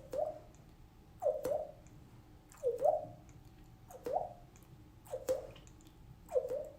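Water drops falling one at a time into water, each a short plop that rises in pitch, six drops at a slow, even pace of about one every second and a quarter.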